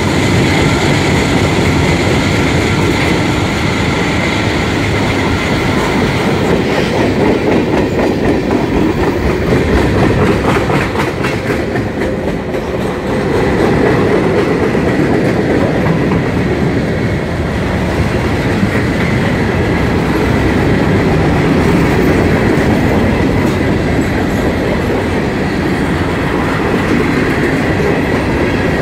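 Freight train cars rolling past close by, their steel wheels rumbling and clacking on the rails in a steady, loud run, dipping briefly about twelve seconds in.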